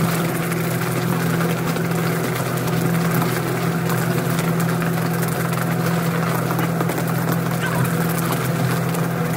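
Fishing boat's engine running with a steady low hum, under an even hiss of water and spray.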